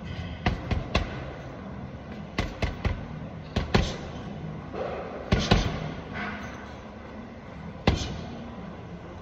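Boxing gloves hitting a hanging heavy punching bag in short combinations of two or three blows, each landing as a sharp thud that rings out in a large hall. The single loudest blow comes near the end.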